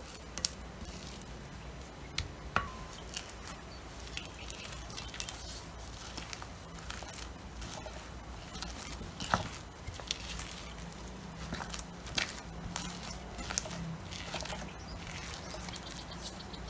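Scattered light clicks and taps of a utensil against a bowl, with soft squishing, as sticky rice-flour batter for uiro is stirred.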